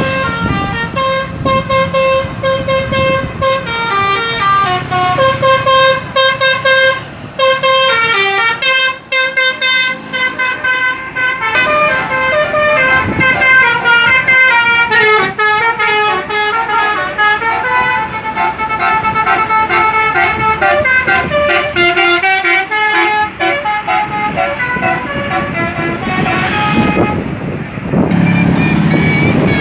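A bus 'telolet' multi-tone horn playing a long melody, several horn notes sounding together and stepping up and down in pitch. Near the end the tune stops and a low rumble takes over.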